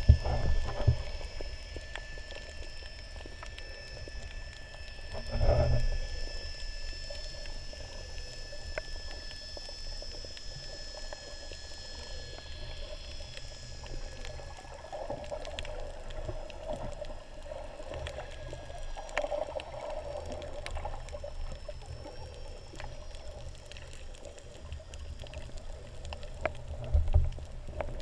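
Underwater sound picked up by a submerged camera: a muffled low rumble and wash of moving water with thin steady whining tones over it. Heavier low thumps come about five seconds in and again near the end.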